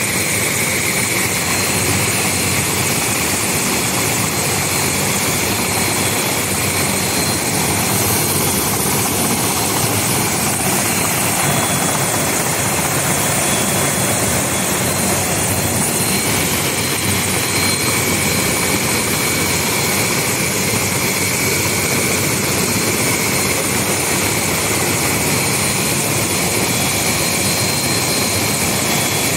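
Light turbine helicopter running steadily on the ground, a high engine whine over the rotor and engine noise.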